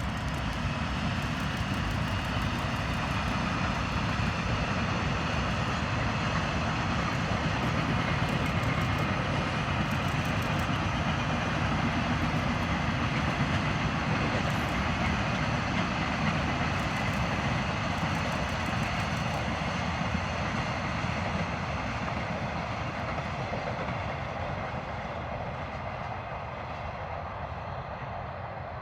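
Container freight train running past, a steady rumble and clatter of its wheels on the rails that slowly fades over the last several seconds as the wagons move away.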